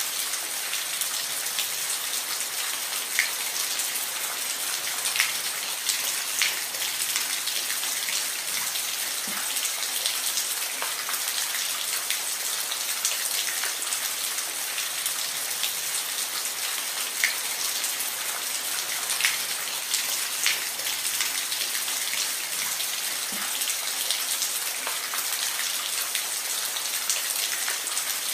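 Steady rain falling, a constant hiss with scattered louder individual drops ticking on a surface.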